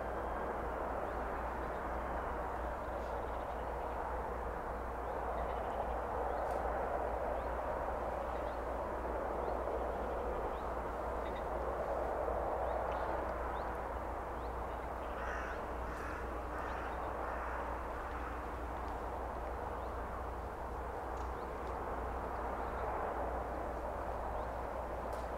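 Crows cawing, a short series of harsh calls about two-thirds of the way in, over a steady rushing background noise.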